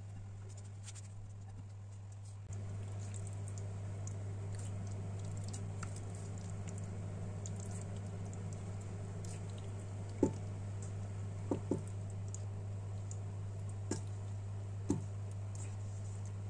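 Saucy shrimp and broccoli stir-fry being spooned onto a china plate: soft wet squishing, with a few sharp clicks of the serving utensil against the plate in the second half. A steady low hum runs underneath.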